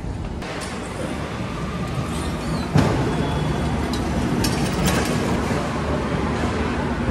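Steady low machinery hum and rumble of a working market warehouse floor, with a single sharp bang about three seconds in.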